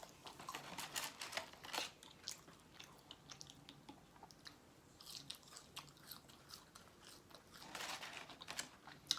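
A person chewing food close to the microphone: faint, irregular mouth clicks and crunches that come in several short clusters.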